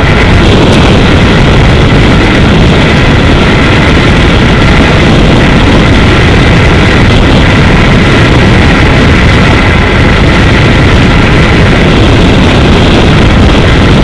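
Yamaha R15 V3's 155 cc single-cylinder engine held at high revs in sixth gear near its top speed, with heavy wind rushing over the handlebar-mounted microphone. Loud and steady throughout.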